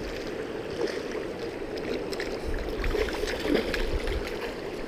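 River water rushing steadily over gravel shallows, with small scattered splashes from a hooked pink salmon thrashing at the surface near the bank.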